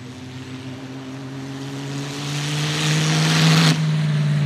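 Auto Union Type C's supercharged V16 engine pulling hard as the car drives past, its note rising slowly and growing louder. A little before the end the sound breaks off sharply to a lower, steadier engine note.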